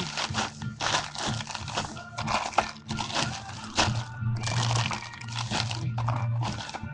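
Plastic bag crinkling and rustling in irregular bursts as it is handled, over background music.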